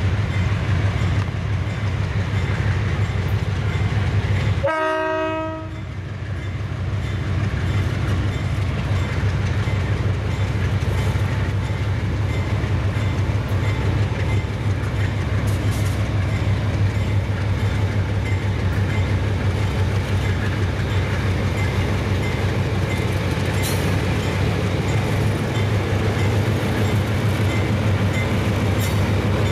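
Several diesel freight locomotives running under power as they approach and pass: a steady low engine drone with wheel noise over the rails. A short horn note sounds about five seconds in.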